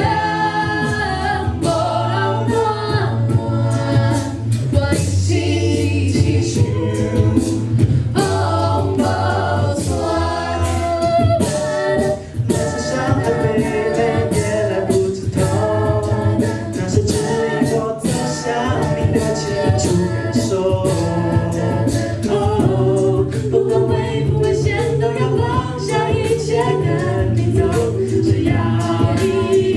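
A cappella vocal group singing a pop song in several-part harmony, with a sustained low sung bass line under the upper voices.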